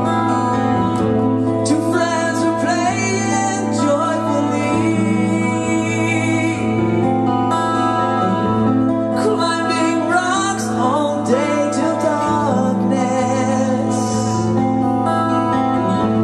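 Live rock band playing a song, with a male lead voice singing over electric guitar and a steady low accompaniment.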